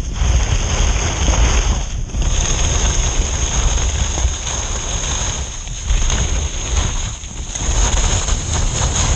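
Wind buffeting the microphone of a point-of-view camera during a fast downhill ski run: a loud, rumbling rush. Mixed in is the hiss and scrape of skis cutting through soft snow, dipping briefly a few times between turns.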